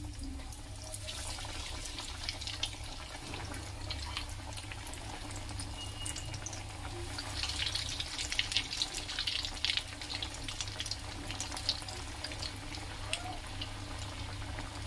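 Potato cutlets deep-frying in hot oil in a kadhai: a steady sizzle with crackling pops, busiest a little past the middle.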